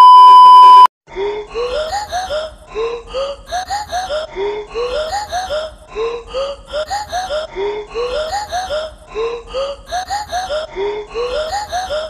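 A loud steady test-pattern beep lasting just under a second, the colour-bars glitch sound effect. Then background music built on a repeating chopped vocal sample: short rising sung syllables looping steadily about once a second.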